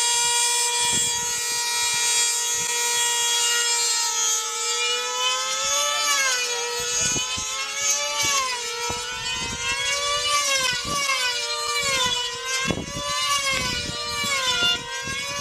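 High-revving two-stroke engines of F2D control-line combat models screaming at full throttle. The pitch holds steady at first, then swings up and down about once a second as the models circle the pilots.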